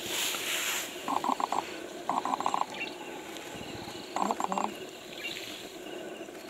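Outdoor ambience with a short, rapid trilling call, a quick string of pulses repeated four times a second or two apart. There is a burst of rustling hiss in the first second.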